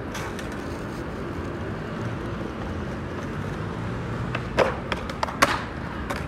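Steady city-street background noise with a low traffic rumble. A few sharp clacks come about two-thirds of the way through.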